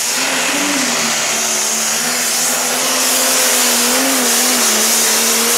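Pro Stock pulling tractor's turbocharged diesel engine running flat out under full load as it drags a weight-transfer sled. It holds a steady, loud note that wavers only slightly, over a wide hiss of exhaust and turbo, growing a little louder partway through.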